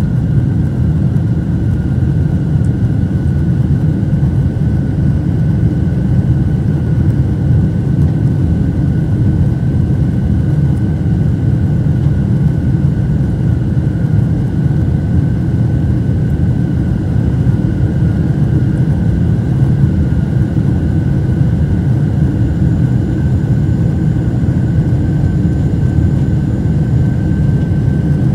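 Boeing 747 cabin noise during the climb after takeoff, heard from a window seat over the wing: a steady deep rumble of the engines and rushing air, with a thin steady high whine running through it.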